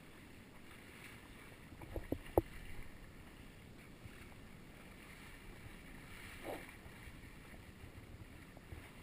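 Steady wash of water and wind around a small rubber boat at sea, with a few sharp knocks about two seconds in and a brief rush of noise past six seconds.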